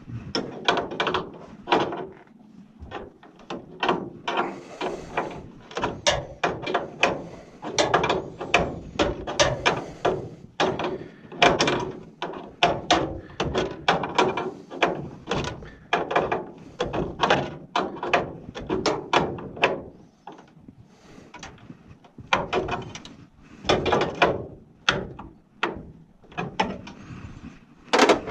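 Rapid, irregular clicks and knocks of hands and tools working on small plastic and metal parts, several a second, easing off briefly twice in the second half.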